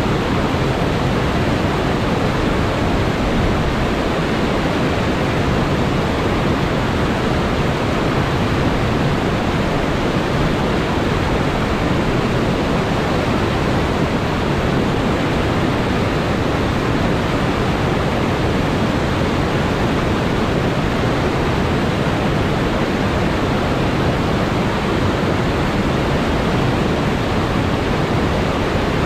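River whitewater rushing over rocky ledges: a loud, steady, unbroken rush of water.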